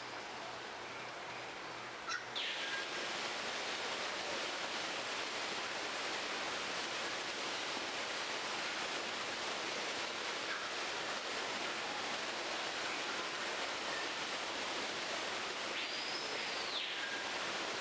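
A steady, even rushing noise, with one short whistled bird call that rises and falls about sixteen seconds in.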